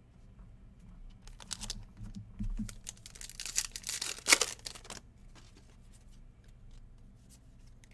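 A basketball trading-card pack's wrapper being torn open and crinkled, in two spells of ripping with one sharp crack in the middle of the second.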